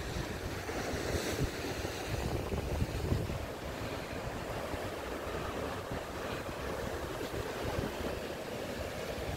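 Sea waves washing in against a rock breakwater, with wind buffeting the microphone in low rumbles.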